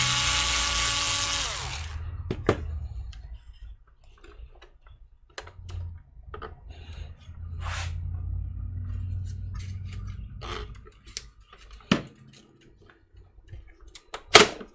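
Electric screwdriver whirring for about two seconds at the start, backing out a screw, followed by scattered clicks and knocks of small metal and plastic parts being handled.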